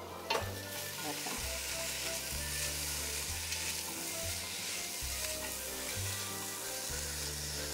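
Onion sautéing in butter in a stainless steel pot, sizzling steadily as a spatula stirs it. A light knock comes just as the sizzle picks up near the start.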